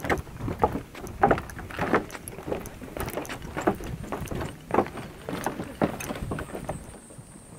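Footsteps on a wooden boardwalk: hollow knocks at an even walking pace, about two a second.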